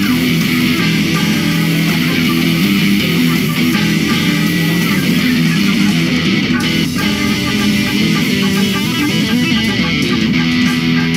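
A band playing music led by electric guitar over bass guitar, at a steady loud level.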